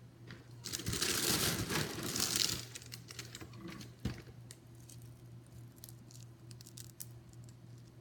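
Crinkling and rustling of snack packaging for about two seconds, starting about a second in, followed by scattered small clicks and a single knock about halfway through.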